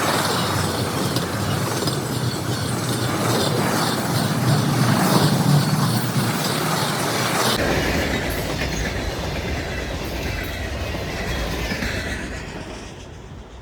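Manifest freight train rolling past, wheels clicking over rail joints with steady clickety-clack. The sound changes abruptly to a lower rumble about halfway through, then fades near the end as the train clears.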